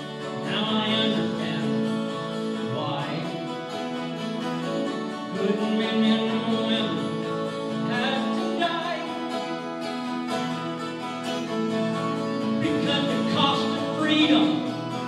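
Live performance of a song: an acoustic guitar strummed over long held chords from a school concert band of brass and woodwinds, with a voice singing phrases every few seconds.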